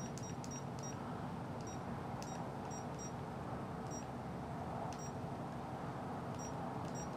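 Pico APRS handheld radio giving short high-pitched key beeps, about ten at irregular spacing, as its buttons are pressed to enter a frequency. A faint steady hum runs underneath.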